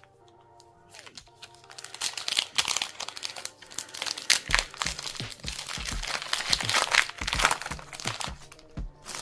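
Foil Pokémon booster pack wrapper being torn open and crinkled, a dense crackling that starts about a second in. Background music with a steady beat runs underneath.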